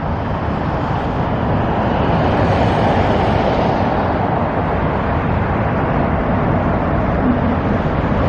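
Steady rushing outdoor noise, without distinct events, swelling slightly two to four seconds in.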